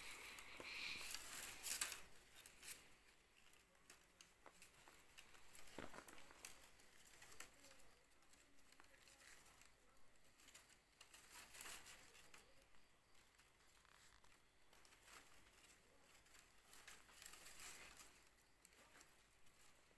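Faint rustling and scattered light clicks of thin bamboo strips being bent and tucked by gloved hands while weaving a pot trivet, the sharpest click about two seconds in.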